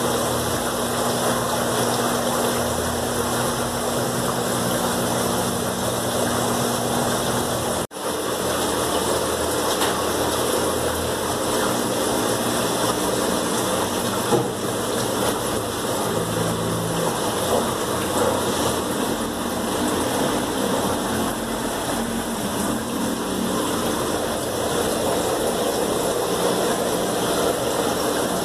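Steady rush of water and low pump hum from running aquarium filters and air pumps, with a brief break about eight seconds in.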